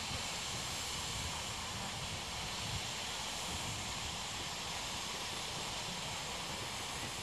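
Steady hiss of steam escaping from the boiler of a GWR 57xx-class pannier tank locomotive standing in steam, with no exhaust beats.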